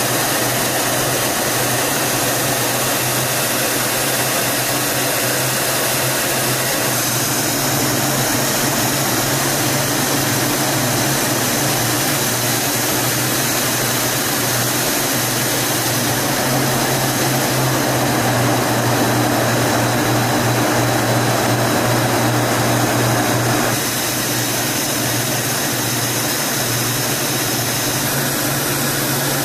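Steady jet aircraft noise in flight, a constant rushing drone with a low hum beneath it, shifting slightly in tone about a quarter of the way in and again near the end.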